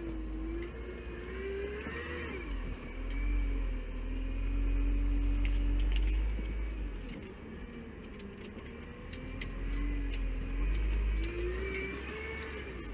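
All-terrain vehicle's engine running under way with a deep rumble, its pitch rising and falling as the revs change. It is loudest in two stretches, a few seconds in and again near the end.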